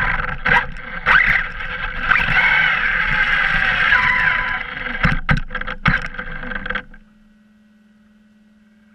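Onboard sound of an Arrma Kraton V3 brushless RC truck on 6S driving over asphalt: the electric motor whines, rising and falling in pitch, over drivetrain rattle and tyre noise, with a few sharp knocks about five to six seconds in. It stops suddenly about seven seconds in, leaving a faint steady hum.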